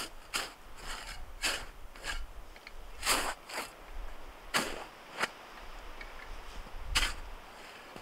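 Digging in hardened snow: short crunching, scraping strokes at an irregular pace, a couple a second at the start, with louder ones about three seconds in and seven seconds in.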